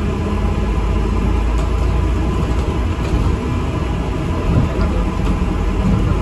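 Inside a moving ADL Enviro 400 MMC double-decker bus: steady low engine and road rumble with a few faint knocks and rattles.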